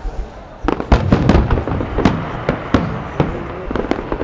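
Fireworks going off: after a short lull, a rapid volley of bangs and crackling reports starts just under a second in and keeps going, several a second.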